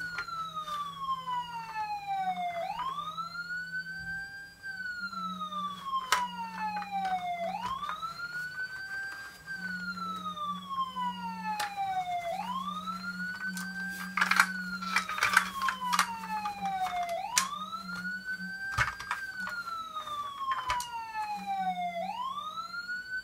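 A siren wails in a repeating cycle about every five seconds, each time rising quickly and then falling slowly. Sharp clicks of plastic toy parts being handled sound several times over it.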